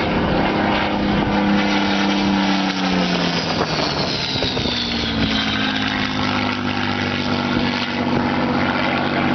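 Single-engine piston fighter plane's engine and propeller running as it makes a low pass overhead. Its pitch drops as it goes by, about two to three seconds in, then it settles into a steady drone.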